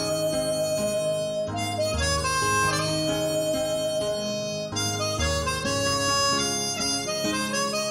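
Seydel chromatic harmonica, pitched in G#, playing a slow melody of long held notes over a recorded backing track with a low bass line.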